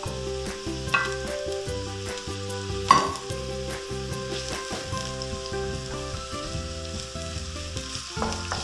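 Finely chopped onion sizzling in hot olive oil in a wok while it is stirred, the first stage of sautéing. A couple of sharp utensil knocks on the pan stand out, the loudest about three seconds in.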